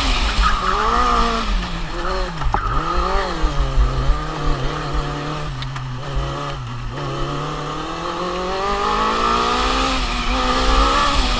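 Formula Student race car's engine heard from an onboard camera. Its revs drop sharply about two seconds in, stay low and steady through the middle, then climb steadily as the car accelerates. Wind buffets the microphone throughout.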